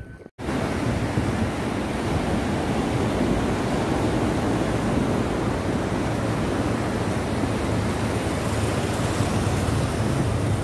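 Ocean surf breaking and washing onto a sandy beach: a steady, even rush of waves with a deep low rumble. It starts abruptly after a brief gap at the very beginning.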